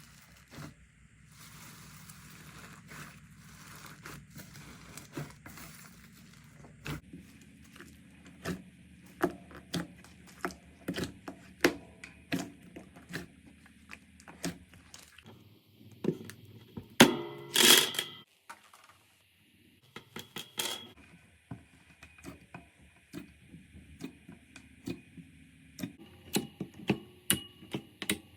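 Slime being pressed and worked by hand, giving a run of sharp clicking and crackling pops, with a louder burst of crackles about two-thirds of the way through.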